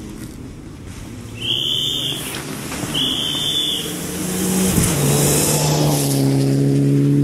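Rally car on a snowy gravel stage approaching at speed and passing close by: the engine grows louder, its pitch drops as it goes past, then it holds a steady high-revving note. Two short, shrill high tones sound early on, about a second apart.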